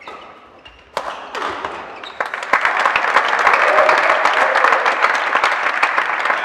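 A sharp crack about a second in, then spectators clapping and cheering, the applause swelling to full strength about two and a half seconds in.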